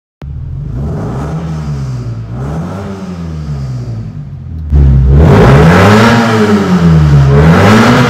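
Car engine revved up and down slowly, a couple of times, heard from inside the cabin. A little after halfway the sound jumps suddenly and stays much louder as the exhaust cut-out opens, giving an open straight-pipe exhaust note.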